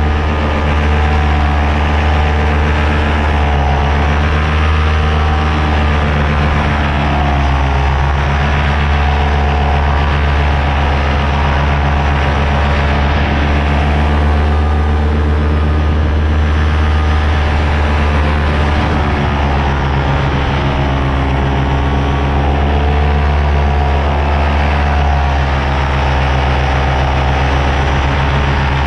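Paramotor engine and propeller running steadily in flight, its pitch wavering slightly now and then.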